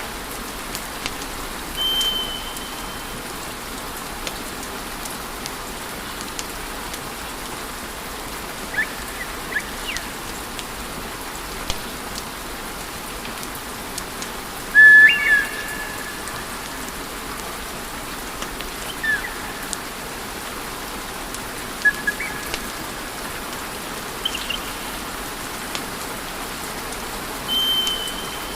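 Wood fire burning with a steady hiss and scattered sharp crackles, broken by a few brief whistling tones, the loudest about halfway through.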